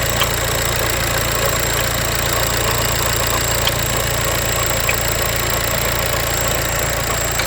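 VW Passat B8's 2.0 BiTDI (CUAA) twin-turbo diesel idling steadily, with a sharp knock coming through every second or two at uneven intervals. The knock is the fault being recorded.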